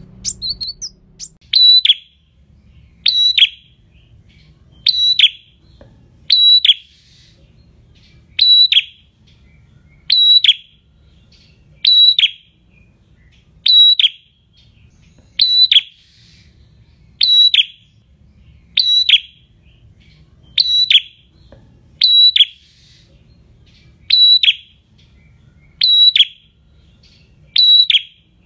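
A caged prenjak, a small rufous-crowned songbird, repeats one loud, sharp call about every second and a half to two seconds. Each note is high and ends in a quick drop in pitch.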